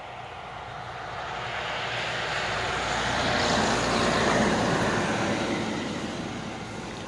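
A passing vehicle: a steady rushing noise swells to a peak about four seconds in, then fades away.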